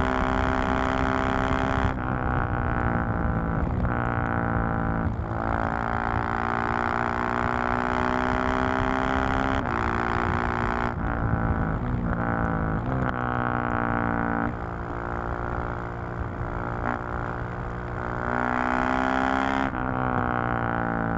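2020 KTM 690 SMC-R's single-cylinder engine and exhaust under way, the pitch repeatedly climbing under throttle and dropping sharply at gear changes or when the throttle is rolled off. It settles into a lower, steadier note for a few seconds past the middle, then picks up again near the end.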